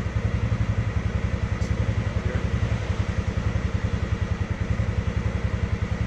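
An engine running steadily with a fast, even pulse and a low hum, unchanging throughout.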